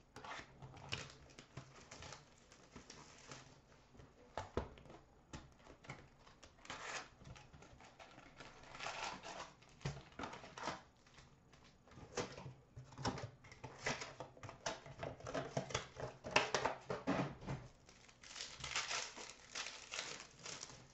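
Plastic wrap and foil pack wrappers crinkling and tearing as a box of trading cards is unwrapped and its packs are ripped open, in irregular crackly bursts.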